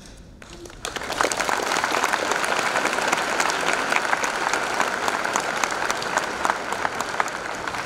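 Audience applauding, breaking out about a second in and keeping up a dense, steady clatter of clapping.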